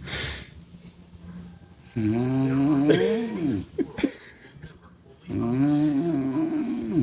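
A woman snoring loudly, with two long, droning snores, one about two seconds in and one a little after five seconds. Each snore bends in pitch. Softer breathing noise comes between them.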